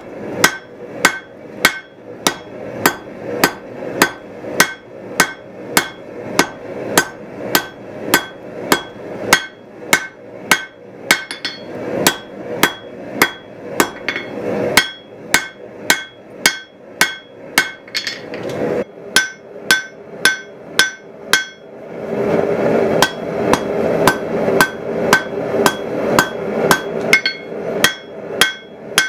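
Hand hammer striking a red-hot pattern-welded steel billet on an anvil, about two blows a second, each with a bright ring from the anvil. A steady rushing noise runs underneath and fades for a few seconds past the middle.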